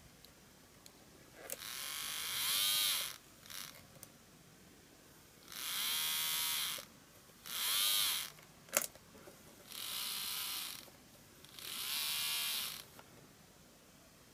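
KATO N-gauge KiHa 25 1000-series model railcar's motor and powered-bogie gears running in five short bursts of about a second each. Each burst is a gear whine that rises and falls in pitch, and there is one sharp click a little after the middle. The running is noisy, which the modeller puts down to something rubbing inside the bogie.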